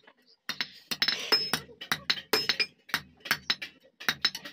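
Hand hammer tapping a steel blade on an anvil in quick, irregular blows, about four a second, each with a short high metallic ring.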